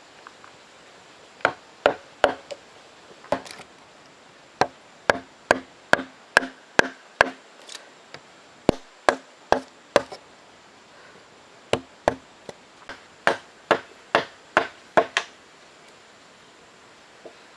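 Wooden mallet striking a steel chisel again and again, cutting a notch into a wooden beam. Sharp knocks come in three runs, about two to three a second, with short pauses between runs.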